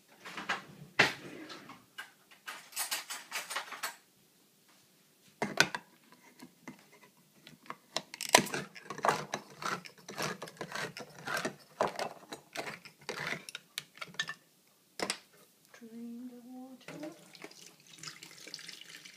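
Hand-held manual can opener cutting open a can of chickpeas: an irregular run of metallic clicks and crunches as the cutting wheel is cranked around the lid. Near the end a short pitched sound, then a hiss of liquid pouring out.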